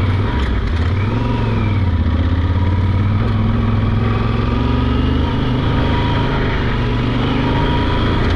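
Yamaha Super Ténéré parallel-twin motorcycle engine running while riding, its pitch dipping and rising a few times with the throttle.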